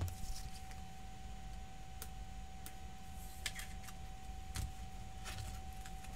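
Trading cards being slid into plastic sleeves and rigid top loaders by hand: a few scattered, separate plastic clicks and rustles over a steady low electrical hum with a faint steady whine.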